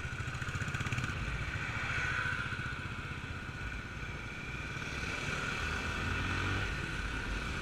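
Bajaj Pulsar motorcycle's single-cylinder engine running steadily under way on the road, picked up by a camera mounted on the bike's handlebars.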